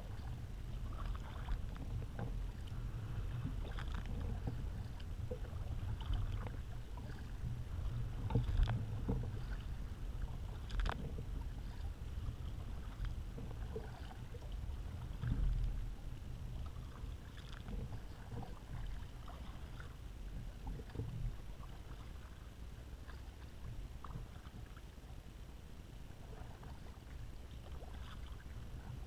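Kayak being paddled: double-bladed paddle strokes splashing and dripping, and water lapping at the hull, with scattered sharper splashes over a steady low rumble.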